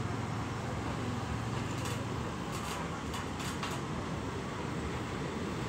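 Low, steady rumble of diesel train engines at a station, with a few faint clicks in the middle.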